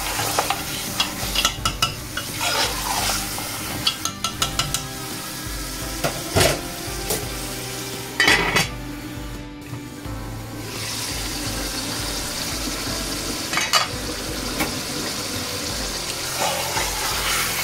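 Lamb chops and onions sizzling as they fry in an aluminium pot, with a metal spoon scraping and clinking against the pot as they are stirred. About eight seconds in the aluminium lid clanks onto the pot and the sizzle briefly drops, then a steady sizzle goes on, with more clinks of the spoon near the end.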